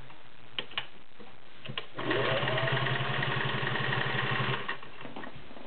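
Singer 403A gear-driven sewing machine: a few light clicks, then about two seconds in the motor speeds up, runs steadily for about two and a half seconds and stops.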